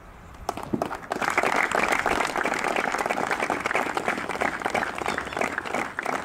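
Crowd applauding: clapping that starts about half a second in, swells to full strength within a second and carries on steadily.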